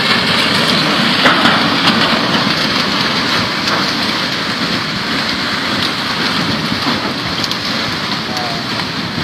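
Flash-flood mudflow rushing down a riverbed, a dense steady rushing of muddy water carrying branches and logs, with a few scattered knocks and cracks of debris.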